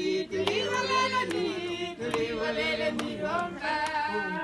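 A group of people singing together unaccompanied, several voices overlapping.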